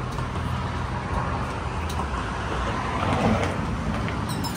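Steady rumble of road traffic, swelling as a vehicle passes about three seconds in. A few light clicks near the end.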